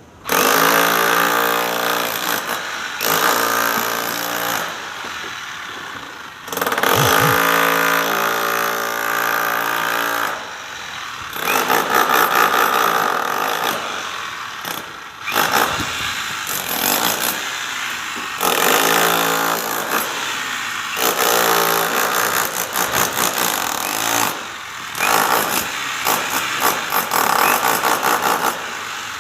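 Hammer drill running in repeated bursts of a few seconds each, switched on and off again and again, with a fast rattle of blows over the motor's whine.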